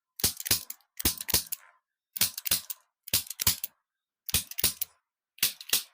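Sharp cracking clicks in quick groups of two or three, about one group a second, heard during a chiropractic neck adjustment.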